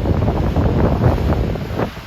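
Rough, choppy ocean waves crossing each other, churning with constant irregular splashing. Wind buffets the microphone with a steady low rumble.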